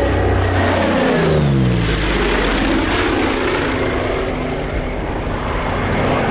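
Douglas A-26B Invader's twin Pratt & Whitney R-2800 radial engines and propellers in a fast flypast. The engine note drops sharply in pitch about a second in as the bomber passes, then runs on at a steadier, lower pitch.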